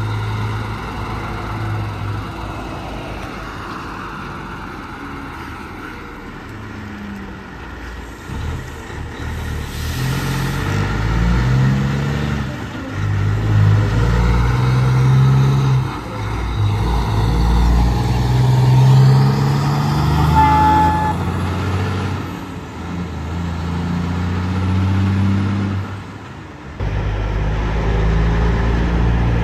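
Heavy trucks passing, their diesel engines rising and falling in pitch as they go by, with a short horn toot about twenty seconds in.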